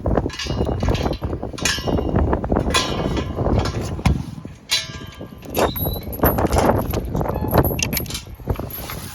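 Strong wind buffeting the microphone in a snowstorm, with several short bright metallic clinks that ring briefly on top.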